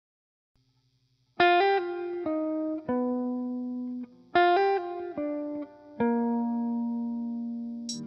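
Background music: a plucked guitar playing a short melodic phrase twice, then a held low note, after about a second and a half of silence.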